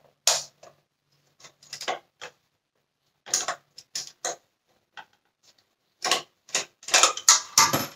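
Hard plastic parts of a Dyson Cinetic Big Ball vacuum's cyclone unit clicking and knocking as they are handled and pulled apart, a run of irregular clicks in small clusters.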